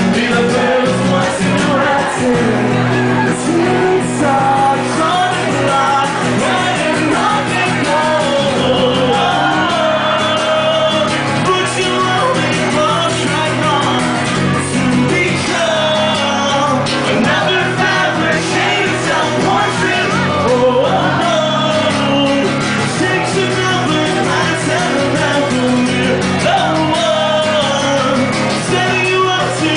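Live rock band playing, with the lead singer singing into a microphone over the band.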